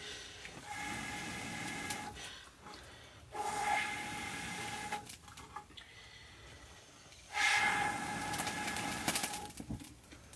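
Long, hissing blows through a blowpipe into a wood fire to kindle it, each with a steady whistle-like tone. Three long blows with short pauses for breath between them.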